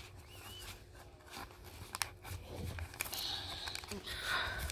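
Baseball cards being slid into the pockets of a plastic binder page: light scratchy crinkling of the plastic sleeve with a few soft clicks, the scraping growing louder in the last second and a half.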